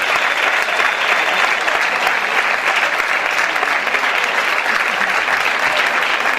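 Audience and people on stage applauding steadily: a dense, even clatter of many hands clapping.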